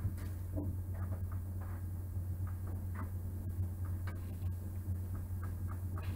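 A steady low hum, with faint scattered taps and clicks as decorative crosses are handled and moved on a table.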